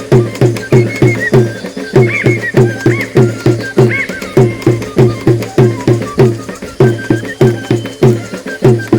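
Traditional Loreto carnival dance music: a steady low drum beat of about three to four strokes a second, with short whistle-like notes rising and falling above it.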